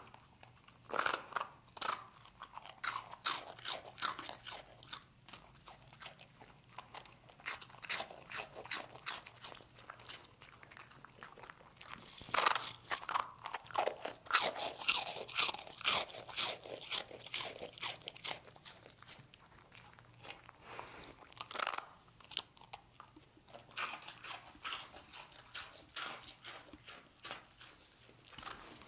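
A dog crunching and chewing hard, dry rusks (toasted bread cubes): a steady run of sharp crunches, thickest around the middle and again about two-thirds of the way through.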